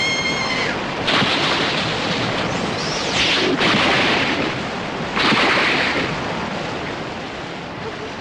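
Anime sound effects of rushing wind, heard as four whooshing swells about a second long each, for a character dashing at super speed. A short high rising squeal sounds at the very start.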